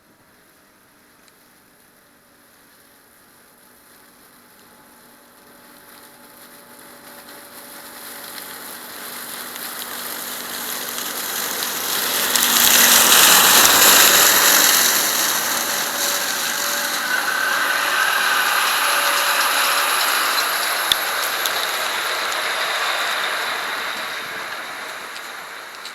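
Grimme Varitron 270 potato harvester working, a continuous mechanical clattering and rattling. It grows steadily louder over about twelve seconds, is loudest around halfway, and eases off near the end.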